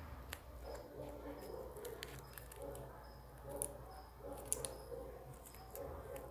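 Faint handling noise of a small cardboard-and-paper toy robot in the hands: scattered light clicks and rustles, the sharpest about three and a half and four and a half seconds in, over a low hum.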